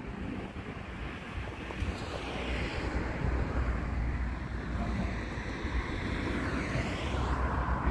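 Wind rumbling on the microphone, with a vehicle passing: its noise swells from a couple of seconds in and peaks near the end.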